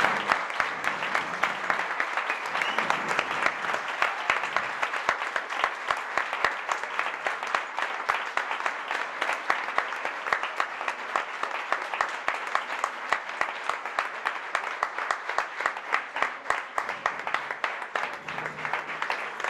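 Sustained applause from a room of people clapping, a dense patter of hand claps that thins a little toward the end, where single claps stand out more.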